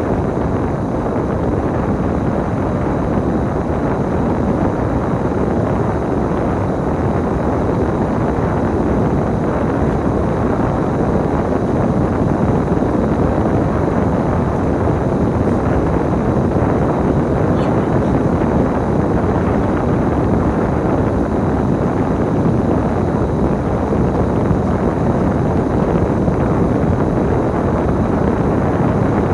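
A KMB bus on the move: steady engine and road rumble from inside the bus.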